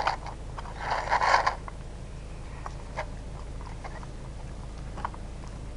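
Spaniel puppies eating from food bowls: small clicks and chewing, with a brief scraping rustle about a second in.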